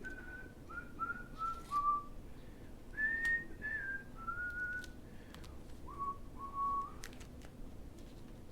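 A man whistling a tune, a string of clear held and sliding notes, with a few light clicks and rustles of handling in the background.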